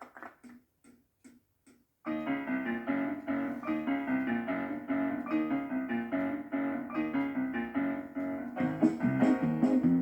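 A few soft taps, then a piano starts a rhythmic rhythm-and-blues intro about two seconds in; a fuller low end joins near the end.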